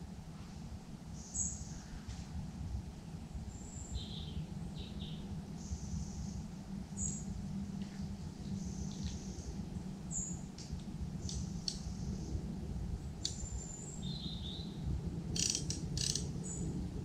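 Small birds chirping and singing in short, scattered calls over a steady low background rumble, with a few sharp clicks near the end.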